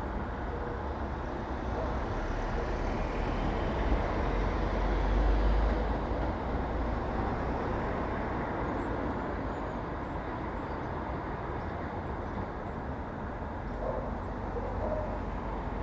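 Street traffic noise: a steady rush of passing vehicles, with a heavier low rumble swelling about four to six seconds in as a vehicle passes close.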